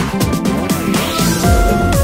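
Electronic background music with a beat of low, pitch-dropping drum hits under held synth tones.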